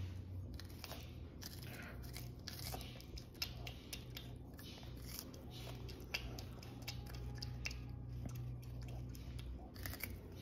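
Prehensile-tailed porcupine gnawing and chewing corn on the cob: irregular crunches and sharp clicks as kernels are bitten off, over a steady low hum.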